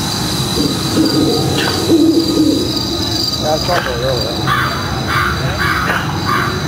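Busy night ambience of animal-like calls over faint voices, with a run of short chirps about two a second in the second half.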